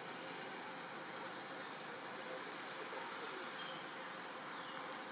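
Outdoor forest ambience: a steady insect drone, with a short, high, rising chirp about every one and a half seconds.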